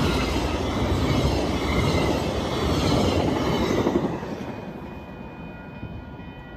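VIA Rail passenger train passing close by over a level crossing: a loud rush of wheel and rail noise that fades after the last car goes by about four seconds in, leaving the crossing warning bell ringing.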